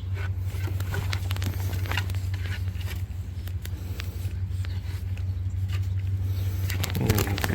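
A vehicle engine idling steadily as a low hum, with scattered light clicks and rustles over it.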